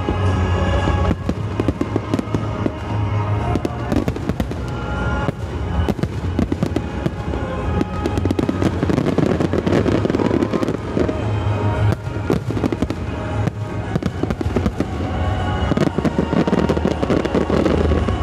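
Fireworks display in full barrage: aerial shells bursting in rapid, overlapping bangs with crackling stars, densest about halfway through and again near the end, over background music.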